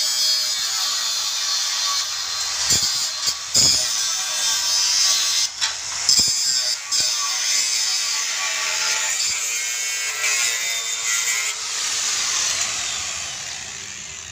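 Bosch GWS 060 angle grinder cutting through steel angle iron with a cut-off disc: a steady, high grinding hiss with a few brief dips where the disc eases in the cut. It fades near the end as the grinder is lifted clear.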